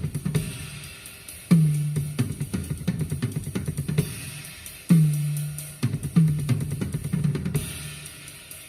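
Acoustic drum kit recording played back through Pioneer GM-X904 component car speakers: busy snare, hi-hat and cymbal strokes, with a few deep drum hits that ring and drop slightly in pitch.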